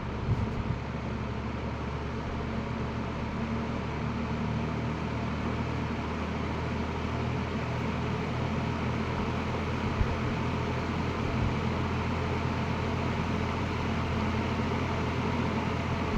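1960s AMC-branded two-speed box fan running smoothly on low speed: a steady motor hum with the rush of moving air. A few light knocks come about half a second in and again around ten seconds in.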